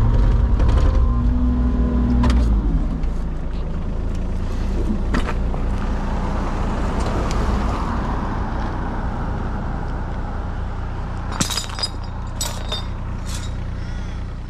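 Diesel engine of a compact earthmoving machine running steadily. Near the end come a few sharp clanks.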